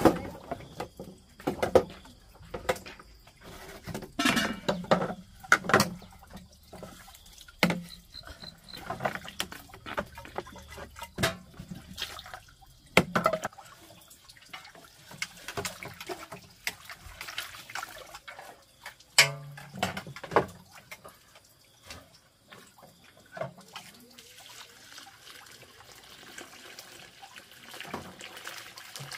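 Water splashing and trickling, with many irregular knocks and clatters.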